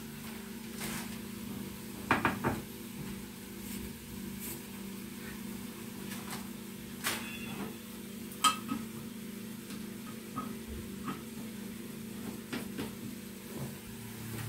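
Sugar bag and green plastic canister being handled: scattered clicks and knocks, with a cluster about two seconds in and a sharper knock a little past the middle, as the canister and its lid are handled and closed. A steady low hum runs underneath.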